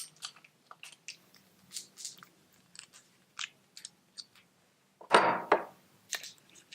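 Small metal clicks and clinks from an 11mm socket wrench loosening and removing the lock nut on top of a suspension fork's cartridge. About five seconds in there is one louder, half-second clatter of metal parts.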